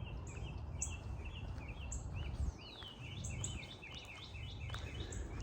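Small birds chirping in many short, repeated notes, with a quick run of falling chirps near the middle, over a steady low wind rumble on the microphone.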